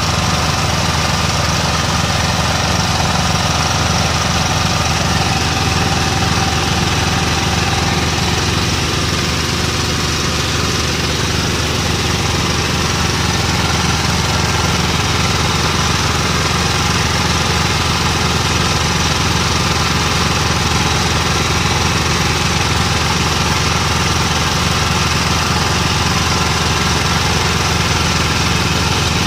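Engine of a traditional oil-well drilling rig running steadily, with a fast even pulsing.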